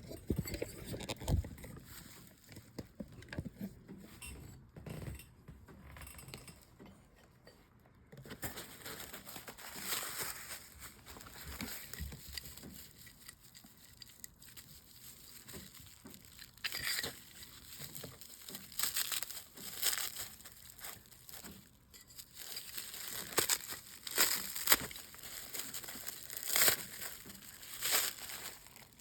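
Packing material crinkling and tearing as stone slabs are unwrapped and handled, in irregular rustling bursts with a few light knocks in the first seconds.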